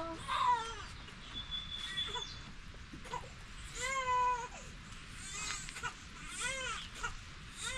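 Young goats bleating: several high calls that rise and fall, coming about a second apart.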